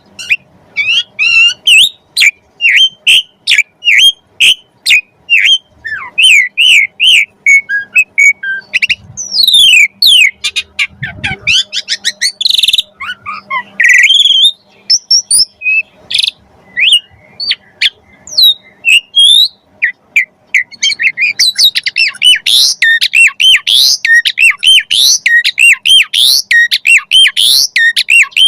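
Javan pied starling (jalak suren) singing: a loud, varied string of sharp whistles, squawks and chattering notes. The notes come faster and denser near the end.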